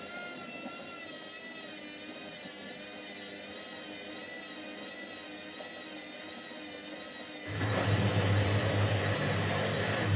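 Washing machine on its spin cycle: a soft running hiss with a wavering high whine, then about seven and a half seconds in it suddenly gets much louder, with a deep hum and a rushing noise.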